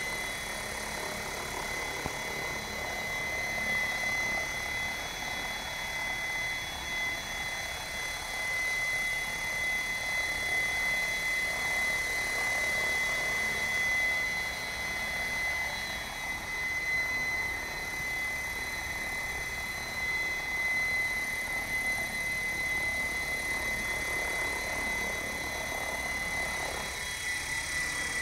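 Electric 700-size RC helicopter (Assault 700) in sustained flight at low head speed: steady rotor noise with a constant high-pitched whine, swelling and fading a little as it moves about.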